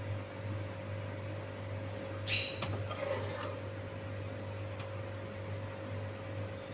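A long steel ladle scooping thick chutney from a kadhai, clinking sharply once with a short metallic ring about two and a half seconds in, over a steady low hum.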